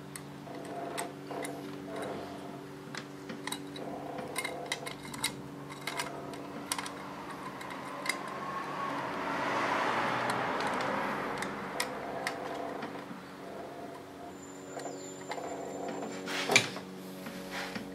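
Small metal clicks and taps of screws and a screwdriver being handled against a circuit board and its metal housing, over a steady hum. A broad rushing noise swells and fades around the middle, and a sharper click comes near the end.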